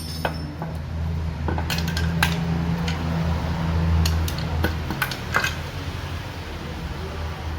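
Metal tools and engine parts clinking and knocking against each other in scattered strikes, with a steady low hum underneath that swells in the middle.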